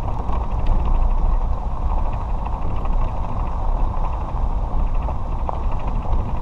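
Cart driving along a packed dirt road: a steady low rumble of the drive and tyres, with wind buffeting the microphone and a few faint ticks and rattles.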